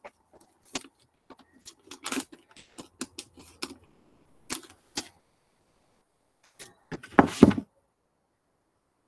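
Small objects and materials being handled on a workbench: a series of light clicks and taps, then a louder half-second of rustling scrape about seven seconds in.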